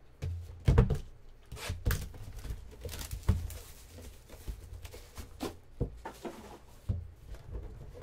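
Trading cards and their packaging being handled on a table: an irregular run of soft knocks, taps and rustles, loudest about a second in and again a little after three seconds.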